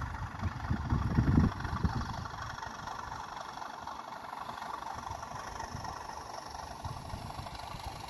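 Model Class 37 diesel locomotive and its wagons running past on the track, a steady mechanical whirr with rolling wheel noise. It is louder and deeper for the first second and a half as the locomotive goes by close, then evens out as the wagons follow.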